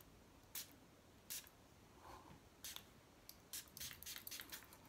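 Faint handling sounds in a quiet room: a few soft ticks, then a quick run of short rustles near the end as hands rub cologne in together.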